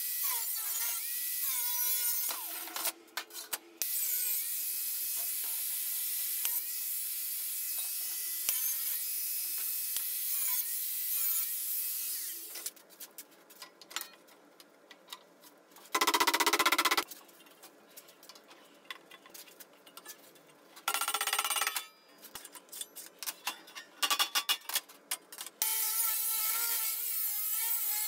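Bosch angle grinder with a thin cut-off disc cutting sheet steel: a steady high grinding whine that shifts in pitch as the disc loads, running for about twelve seconds. After that, a few short loud bursts and clatter as the steel sheet is handled, then the grinder cuts again near the end.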